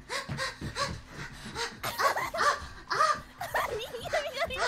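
A person's voice imitating a dog: a quick run of short yaps, two or three a second, ending in a wavering whine.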